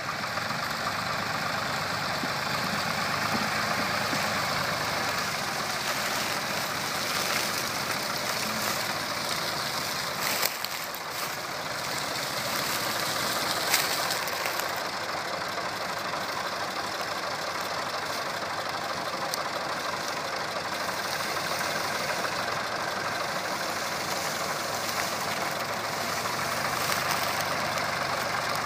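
Ford 3000 tractors' three-cylinder engines running steadily, with a sharp knock about ten seconds in and another, louder one near fourteen seconds.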